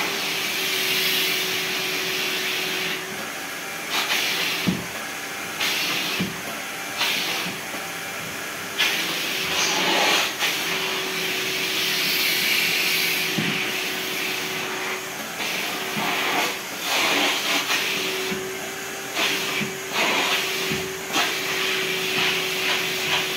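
Vacuum cleaner running, sucking through a long hose and upholstery nozzle drawn over velvet sofa fabric. It is a steady motor hum under a hissing rush that swells and fades as the nozzle moves, with a few sharp knocks of the nozzle against the sofa.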